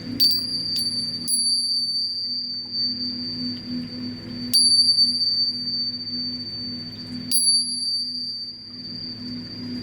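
Singing bowl sound: a high, clear ringing tone struck about five times, each strike ringing on and fading, over a low, wavering hum.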